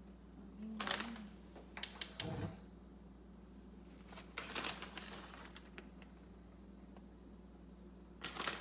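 Plastic food bag crinkling and rustling in four short bursts as it is handled and shaken, over a steady low hum.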